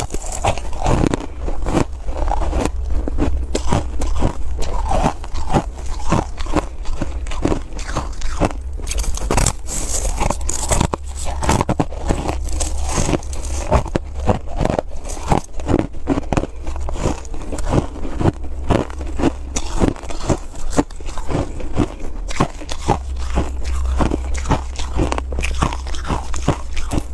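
Close-up crunching of a waffle-moulded block of frozen coloured ice being bitten and chewed, with many quick, irregular crunches one after another.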